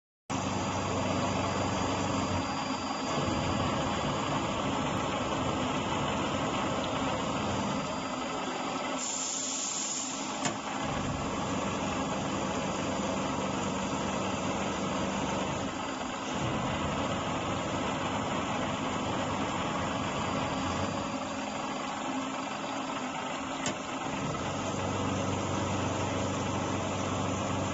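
Heavy CNC gantry boring and milling machine milling the teeth of a large herringbone (double helical) gear wheel under a coolant jet. The machine runs with a steady noise and a low hum that fades and comes back a few times.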